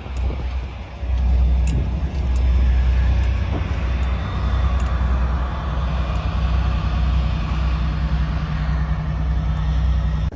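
A vehicle running steadily: a low rumble with a constant hum.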